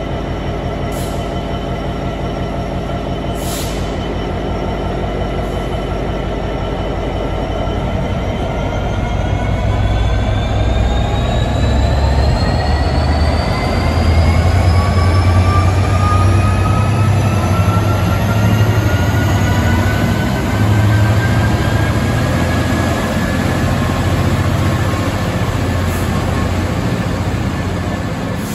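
Class 66 diesel locomotive's two-stroke V12 engine working hard as it pulls away with a train of loaded hopper wagons. A whine rises steadily in pitch from about a third of the way in as the train gathers speed.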